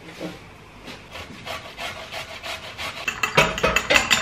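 A fork beating egg in a small bowl: short scraping strokes, about two a second, that come faster and louder near the end.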